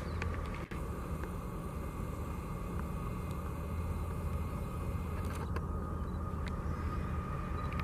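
CSX diesel locomotive leading a double-stack container train, running as it approaches: a steady low drone with a steady high whine that grows a little stronger near the end.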